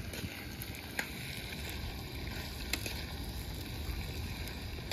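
Wind rumbling on the microphone in an open desert campsite, with a couple of sharp clicks about a second in and near three seconds in.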